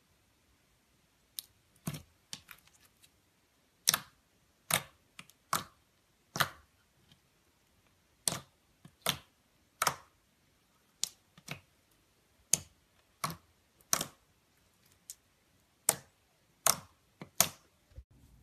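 Glossy pearly-white slime squeezed and pressed by hand, giving sharp clicking pops as air pockets in it burst. The pops come singly and irregularly, about one a second, with near quiet between them.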